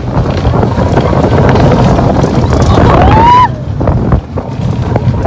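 Heavy wind buffeting a phone microphone on a moving roller coaster, with a rider's short rising whoop about three seconds in.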